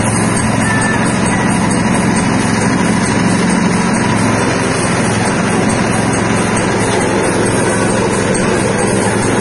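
Stainless steel soybean splitter and hull separator running steadily while processing soybeans: a constant mechanical drone with a low hum under a noisy hiss.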